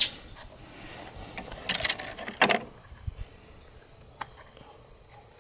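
Scissors snipping and picking at the seal on a plastic paint bottle: a few short, crisp scrapes and clicks, about two seconds in and once more near the end. A steady high insect drone runs underneath.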